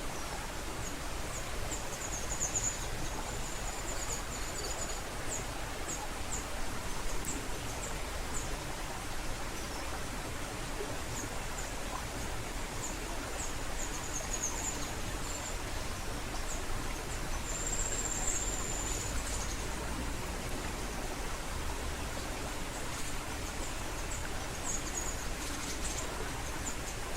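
Waterfall water rushing steadily, with high, thin bird chirps now and then and one longer whistled note about two-thirds of the way through.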